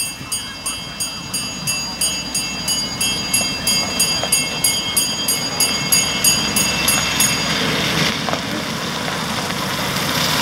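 Miniature diesel locomotive's bell ringing rapidly, about three strokes a second, as the 15-inch gauge train pulls away. The bell stops about seven and a half seconds in, leaving the steady running of the locomotive and cars on the track.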